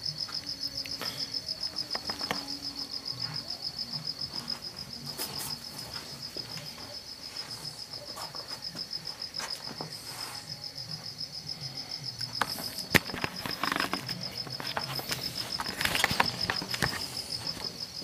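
Crickets chirping in a steady, fast-pulsing high trill, with scattered scuffs and clicks that grow busier near the end, including one sharp click.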